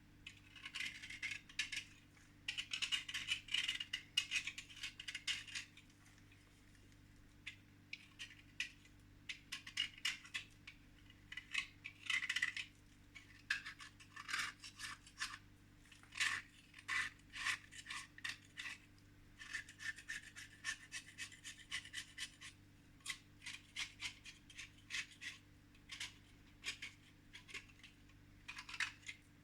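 Pieces of natural chalk being cleaned by scraping their surface. It comes as irregular clusters of scratchy strokes with many small clicks, pausing briefly between clusters.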